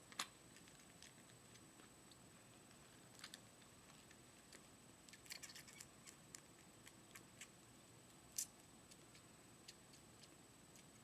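A kitten suckling from a pet nursing bottle: faint, irregular wet clicks and smacks at the rubber nipple, in a cluster around the middle and loudest once about eight seconds in, over near silence.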